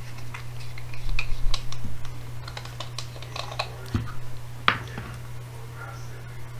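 Light plastic clicks and taps as a small plastic bottle is handled and uncapped, with one sharper tap about four and a half seconds in as it is set down on the paper towel. A steady low hum runs underneath.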